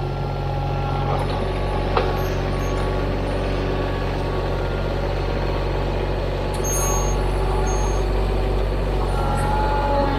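TYM T313 subcompact tractor's diesel engine running steadily, a little louder from about two-thirds of the way in.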